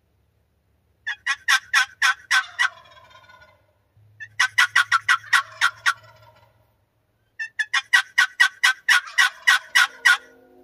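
Wild turkey calling: three loud runs of rapid, sharp notes, each trailing off into a fainter, lower rattle.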